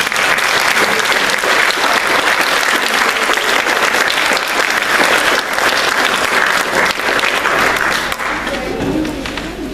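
An audience applauding, a dense clapping that thins out about eight seconds in.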